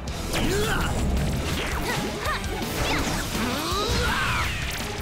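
Cartoon action sound effects, with whooshes and crashing impacts, over background music, busy with many quick sliding sounds.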